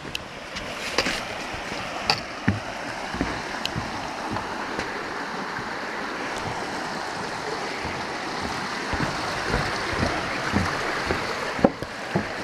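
A stream running under a wooden footbridge: a steady rush of water that slowly grows louder, with scattered footstep knocks on top.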